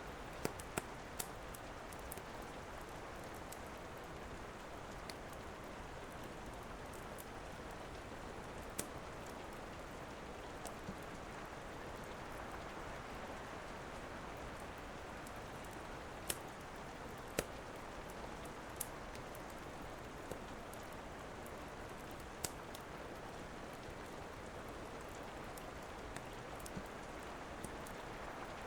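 Steady rain falling, with a wood fire crackling: sharp single pops scattered every few seconds over the even hiss of the rain.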